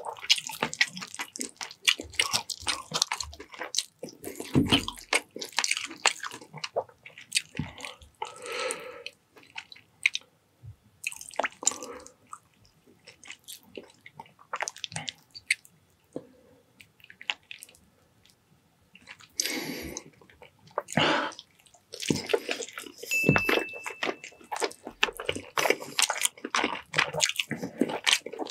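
Close-miked wet chewing and lip-smacking clicks of a person eating chicken adobo in coconut-milk sauce with rice, in runs broken by a quieter lull midway.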